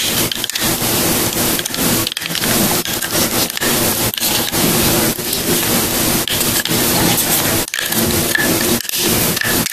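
Loud, continuous scraping and rustling close to the microphone as the Walther P22's slide, barrel and frame are handled and worked back together, with brief irregular breaks.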